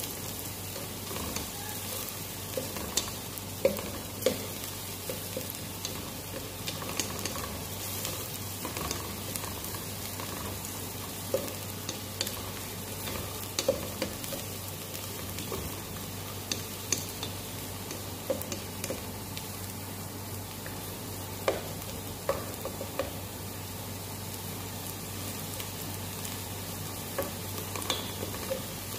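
Grated carrot and onion sizzling in hot oil in a stainless steel pot, stirred with a wooden spoon that knocks against the pot every few seconds.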